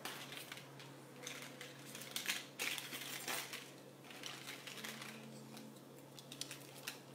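Faint scattered clicks and light clinks of small hard objects being handled, over a steady low hum.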